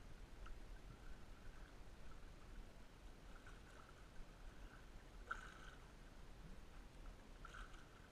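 Faint water lapping and splashing around an inflatable float tube on choppy water, over a low steady rumble, with one light click about five seconds in.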